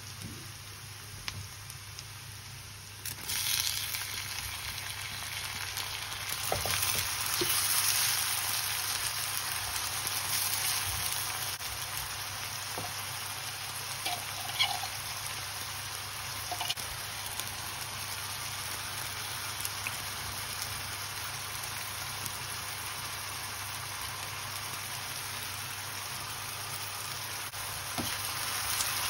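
Food sizzling as it fries in hot oil in a pan. The sizzle gets louder about three seconds in, with a few light clinks of a spoon stirring.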